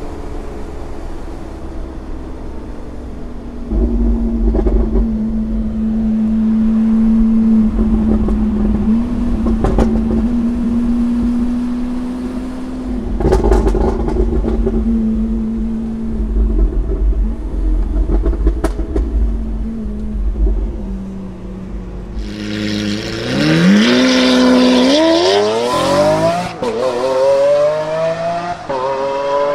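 Lamborghini Aventador's V12 through a Capristo cat-less straight-pipe exhaust: a steady low drone at cruising revs heard from the cabin, with a few brief sharp sounds. About 22 seconds in comes a hard acceleration, the pitch rising with a gear change partway through.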